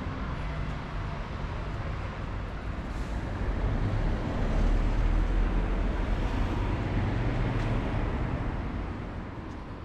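Road traffic on a busy city boulevard: a steady din of engines and tyres, with a vehicle passing close by, its low engine rumble growing about four seconds in and fading near the end.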